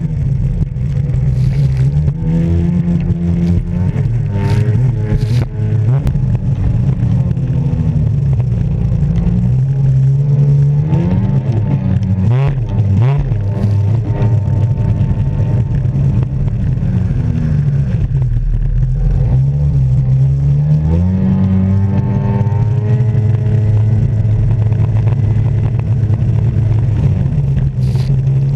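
Jet ski engine running hard, its pitch falling and rising several times as the throttle is worked, with a dip about halfway through and a long climb after.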